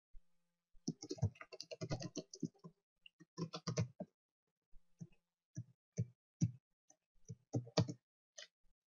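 Typing on a computer keyboard: two quick runs of keystrokes, then slower single key presses, about two a second, later on.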